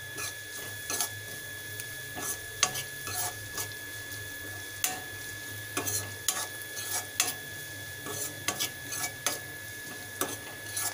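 Metal spatula scraping and tapping against a steel kadai as chopped onions, green chillies, curry leaves and coriander are stirred, in irregular strokes, over a faint sizzle of frying.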